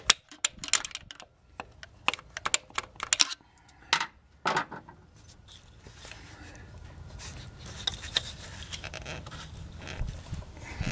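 Screwdriver clicking and tapping against a stuck variable valve timing solenoid and the metal around it while prying at it: a quick, irregular run of sharp clicks over the first few seconds, then fainter handling noise with a few light knocks.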